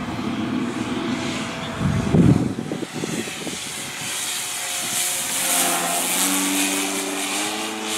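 Electric quarter-scale RC Piper Cub flying past, its brushless outrunner motor and 20x6 propeller whirring steadily, the tone rising a little in pitch over the last few seconds. A brief low rumble comes about two seconds in.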